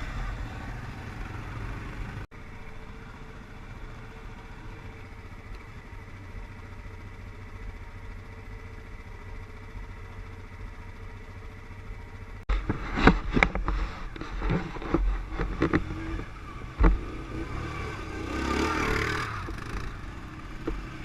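ATV engine running steadily. About halfway through, a run of sharp knocks and clattering begins, with a louder rushing surge near the end, as the quad is worked over rough ground.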